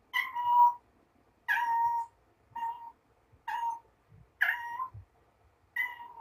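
Mother cat meowing repeatedly while she carries a small toy ball around: six short, even-pitched calls, about one a second, the first the loudest.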